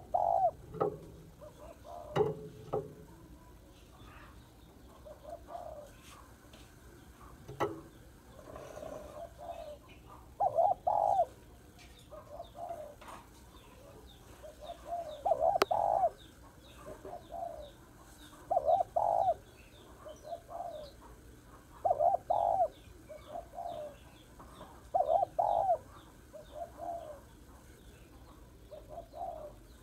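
Spotted dove cooing: its coo phrase repeats about every three seconds from about ten seconds in, a louder coo each time followed by a softer one. A few sharp knocks come in the first eight seconds, and a small bird chirps rapidly and faintly through the middle.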